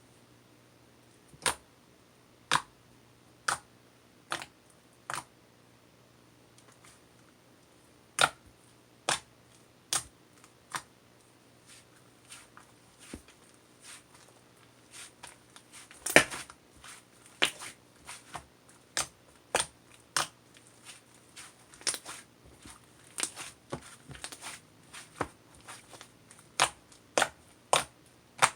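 Sharp clicks, spaced about a second apart at first, then coming quicker and more irregularly through the second half.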